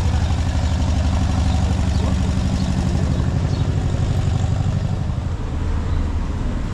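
A motor vehicle's engine running close by with a low, fast, even pulsing, easing off slightly about five seconds in.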